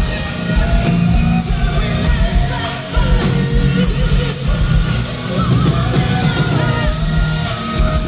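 Live symphonic metal performance: a male and a female vocalist sing over drums and a string orchestra, with a heavy, dense low end.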